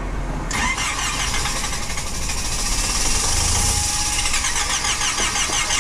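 A small car's starter cranking the engine for about five seconds with the throttle held down, stopping abruptly near the end: a hard start that the owner puts down to the high altitude.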